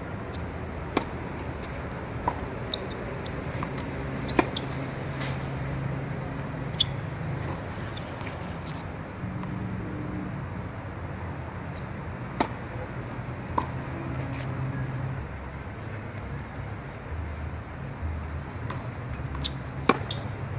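Tennis balls struck by racquets and bouncing on a hard court: sharp single pops a second or more apart, the loudest about four seconds in and near the end, over a steady background hiss.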